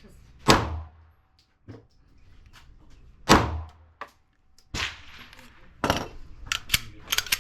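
Pistol shots: two loud ones about three seconds apart, then two more sharp shots a second apart, and smaller cracks and clicks near the end.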